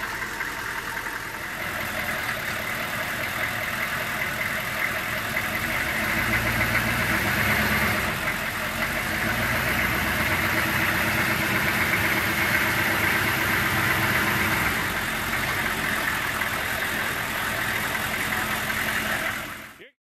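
1994 Chevrolet K2500 Suburban's 6.5L Detroit Diesel V8 running steadily through its exhaust, its note shifting a few times as engine speed changes slightly, then cutting off suddenly at the end.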